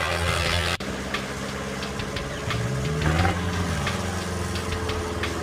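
Diesel tractor engine running steadily under load, with a brief rise and fall in pitch about three seconds in. The sound breaks off sharply for an instant less than a second in, then carries on.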